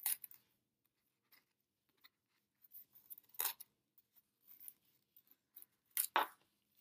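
Cardboard and yarn being handled: scattered short scrapes and taps as strands of yarn are pulled and pushed into slits cut in the edge of a cardboard weaving loom, with the loudest ones about three and a half seconds in and around six seconds in.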